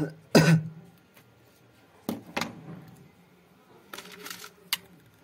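A man coughs twice, loudly. Then come small handling noises: a couple of light knocks, a short crinkle as the phone's thin adhesive keypad dome sheet is handled, and a single sharp click.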